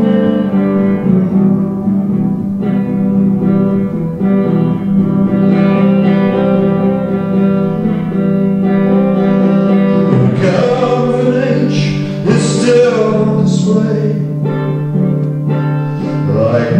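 A man singing a song to his own guitar accompaniment. Sustained chords ring through, and from about ten seconds in his sung words become clear.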